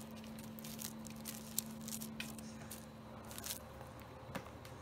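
A kitten batting, grabbing and biting at a hanging paper strip and cord: a quick, irregular run of rustles, scratches and light taps, with a sharp click at the very start and another about a second and a half in.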